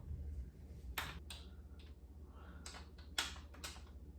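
A handful of sharp, irregular metallic clicks and taps of a hand tool, likely a 10 mm wrench, on bicycle hardware, the loudest about three seconds in. A low steady hum runs underneath.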